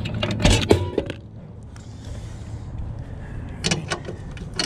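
Several sharp knocks and clicks of handling, bunched in the first second and again near the end, over a low steady rumble.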